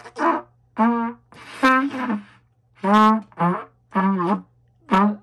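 Trumpet blown in a string of short, separate blasts, about seven of them, each well under half a second long.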